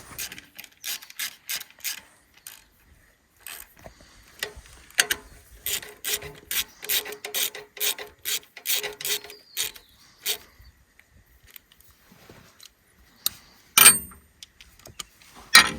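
Ratchet spanner clicking as bolts on an excavator's fuel injection pump are done up, in a run of quick even strokes of about three clicks a second. Near the end come two sharp metal clinks, the loudest sounds here.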